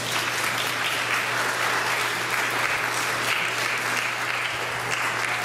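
Congregation applauding: steady clapping from many hands.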